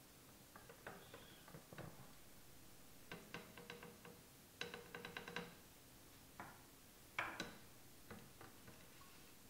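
Faint clicks and taps of a metal tablespoon and wooden stirring stick against a plastic jar while beeswax is stirred into a warm pine tar and linseed oil mixture. A quick run of ticks comes about three seconds in and a faster, lightly ringing run about five seconds in, with a sharper single tap near the seventh second.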